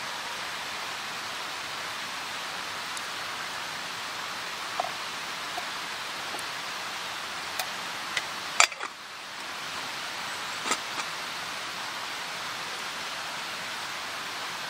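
Steady rushing outdoor noise, like rain or running water, with a few sharp pops and clicks scattered through it; the loudest pop comes a little past halfway.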